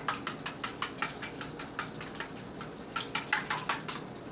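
Eggs being whisked in a bowl: quick, regular clicks of the whisk against the bowl, about six a second. The clicks slow for a moment midway, pick up again, then stop shortly before the end.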